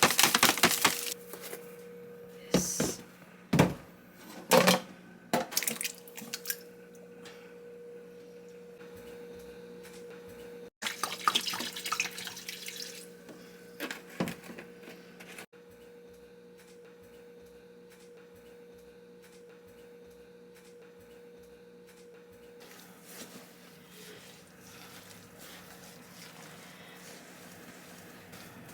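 Kitchen washing-up sounds: a tap runs and splashes briefly at the start and again about ten seconds in, with scattered knocks and clinks of dishes. A steady low hum runs underneath.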